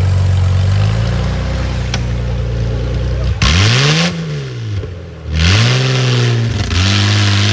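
Modified off-road 4x4's engine idling, then revved hard three times, each rev rising and falling in pitch, with a harsh rushing noise over the first and last revs.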